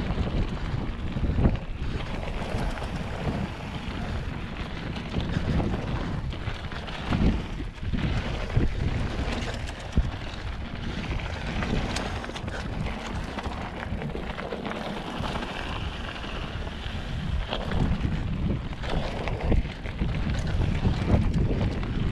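Wind buffeting the camera microphone as a mountain bike rolls fast down a dirt and gravel trail, its tyres crunching and the bike rattling, with occasional sharp knocks over bumps.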